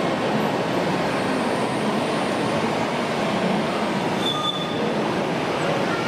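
Scale RC model Liebherr 742 crawler dozer working through sand, its drive running steadily against a constant background hubbub, with a brief high squeal about four seconds in.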